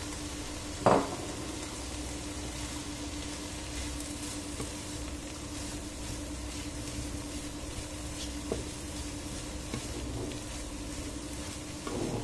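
Chopped vegetables (broccoli, courgette) sizzling in a frying pan as a wooden spatula stirs through them, with one sharp knock about a second in and a steady low hum underneath.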